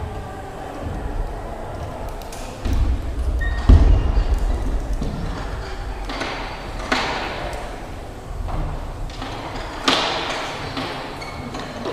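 A few dull thumps and knocks in a large, echoing hall, the loudest about four seconds in with a low rumble around it, then single sharper knocks about seven and ten seconds in.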